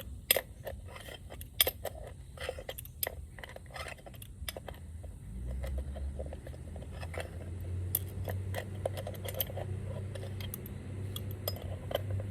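Small metallic clicks and clinks of a crescent wrench and pliers working a steel bolt out of a piece of scrap brass, the bolt turning freely instead of backing out. A low steady hum comes in about halfway through.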